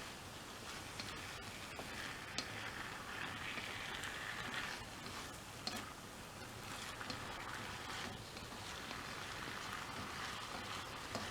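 Stir-fry of tempeh, bean sprouts and greens sizzling in a hot pan: a steady hiss with a few sharp clicks scattered through it.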